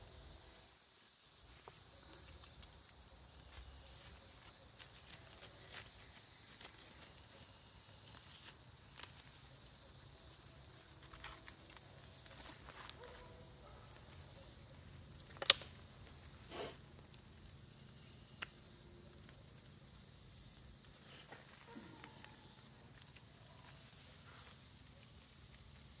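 Small wood campfire crackling faintly, with scattered ticks and pops and two louder snaps about fifteen and a half seconds in, a second apart.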